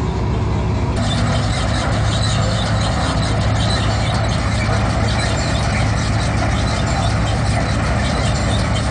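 Groundnut combine harvester running under load: a steady engine hum with a dense mechanical clatter from the pickup reel and threshing drum as it takes in windrowed groundnut plants. The clatter grows louder about a second in.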